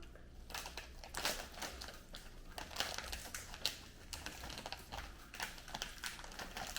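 Irregular small clicks and crinkles of a plastic snack packet being handled.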